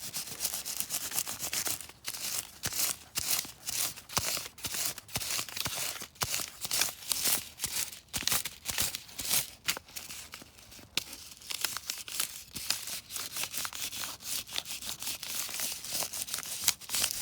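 Crayon rubbed quickly back and forth over paper laid on pine needles on a clipboard: a continuous run of short, scratchy strokes, several a second.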